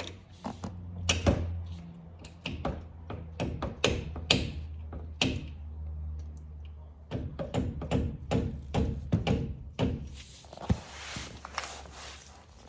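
A mallet striking a drill bit used as a drift, driving the bottom pad retaining pin through a four-piston Brembo brake caliper. The sharp metallic taps come in uneven runs for about ten seconds. Near the end there is a softer rustle.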